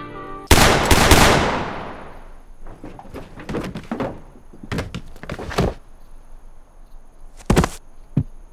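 A loud double bang that dies away slowly with a long echo, followed by scattered quieter knocks and thuds, and two sharp knocks near the end.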